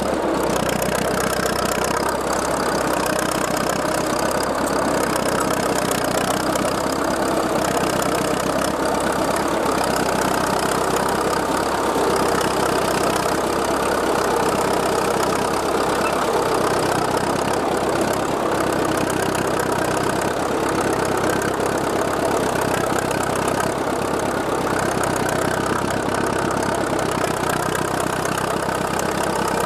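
International Harvester TD-40 TracTracTor crawler's diesel engine running steadily under load while pulling a plow.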